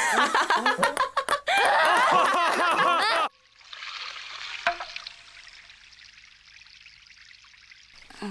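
Loud, fast-warbling chattering sounds for about three seconds cut off abruptly, followed by a steady trickle of running water that slowly fades, with a single click about halfway through.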